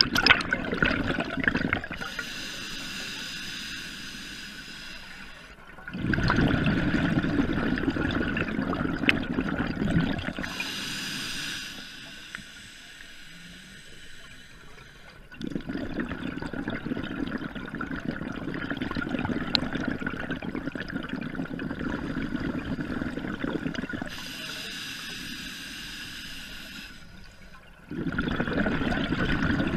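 Scuba diver breathing through a regulator underwater: a hissing inhale, then a long bubbling exhale, repeated about three times at a slow, even pace.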